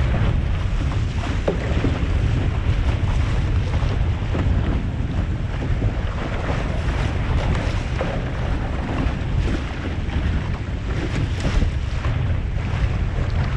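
Wind buffeting the microphone as a low rumble, over the steady rush and splash of water streaming past the hull of a Musto Skiff sailing fast in a strong breeze.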